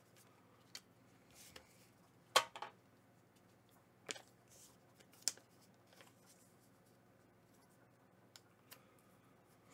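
Pokémon trading cards being handled and laid on a playmat: scattered light taps and slides, the sharpest a little over two seconds in.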